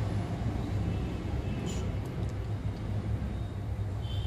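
Steady low rumble of background noise, with a faint light click about one and a half seconds in.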